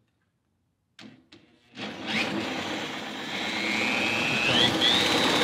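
Cordless drill spinning a Honda UT3 quarter-midget engine's flywheel, held near 2,000 RPM for an ignition timing check. Two clicks about a second in, then the drill starts a little under two seconds in and runs steadily, its whine rising in pitch about four and a half seconds in as it speeds up.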